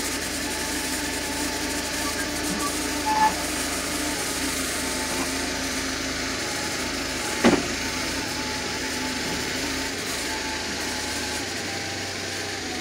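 Tractor engine idling steadily while its front loader works, with a single sharp knock about halfway through.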